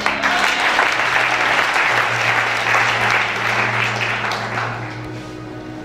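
Audience applauding after a point in a sermon, dying away about five seconds in.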